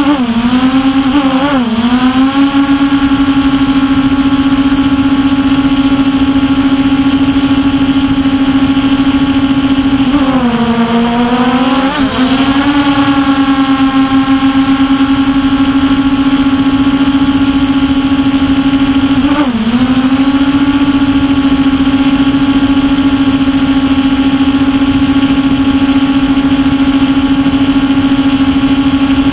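MJX Bugs 5W quadcopter's brushless motors and propellers running with a steady, loud whine, heard close up from the camera the drone carries. The pitch dips and climbs back three times, near the start, about ten seconds in and just before twenty seconds, as the motors slow and speed up again.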